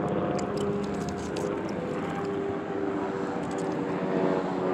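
Helicopter flying close by: a steady drone of engine and rotor tones that slowly drift in pitch.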